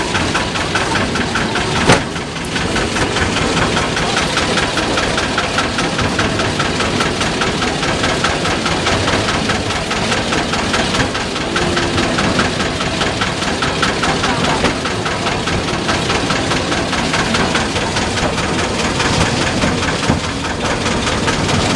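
Small narrow-gauge park-railway locomotive running steadily with its train, its engine and the cars rattling along the track in a fast, regular clatter. There is one sharp knock about two seconds in.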